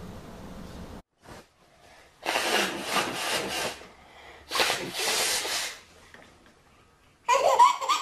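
Two long, loud nose blows, each about a second and a half, followed near the end by a baby laughing. The first second holds a steady low hum from inside a car.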